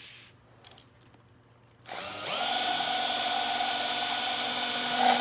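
Electric drill driving a drill-mounted oil pump. It starts about two seconds in and runs at a steady speed with an even whine, sucking used oil out of a small engine's crankcase.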